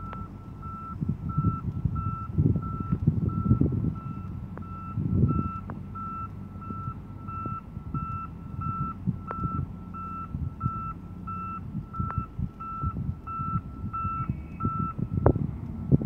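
Reversing alarm of an articulated dump truck backing up, beeping in an even, rapid train over the low rumble of diesel engines, then stopping about a second before the end.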